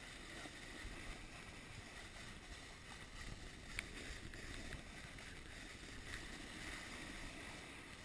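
Steady hiss of gliding over packed, groomed snow, mixed with wind buffeting the microphone, with a single sharp click a little under four seconds in.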